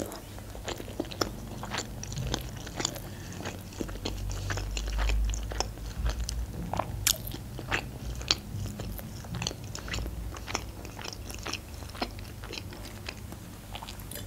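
Close-miked chewing of a sushi roll: many small wet mouth clicks and soft crunches, spread unevenly through the chewing.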